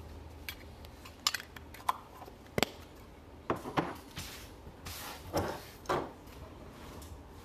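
A string of sharp knocks and clicks, about half a dozen, followed by a few short scraping or rustling swishes: objects being handled and set down near the microphone, out of sight.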